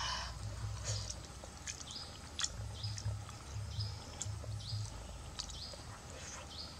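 A bird calling in a run of short, high chirps, repeated every half second to a second, with small clicks and a low pulsing throb underneath.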